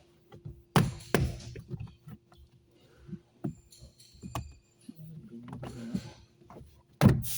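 Scattered clicks and knocks of hands working a pickup truck's plastic rear door trim panel loose. A faint steady hum runs underneath, and a louder knock and rustle come near the end.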